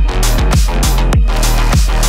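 Electronic background music with a heavy bass and a steady, driving drum beat.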